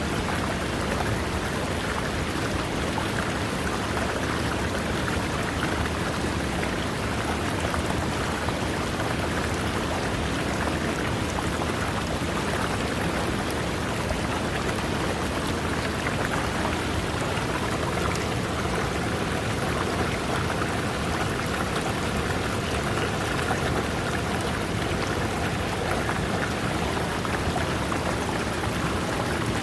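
River water running over rocks: a steady, even rush and splash with no breaks or changes.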